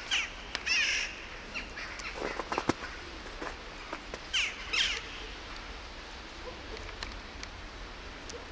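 Short bird calls falling in pitch, a few near the start and a pair about four and a half seconds in, with a few sharp clicks between two and three seconds in.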